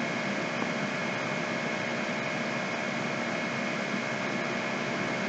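Steady background hiss with a faint, constant electrical hum, unchanging throughout, the noise floor of a desk microphone recording with no other sound.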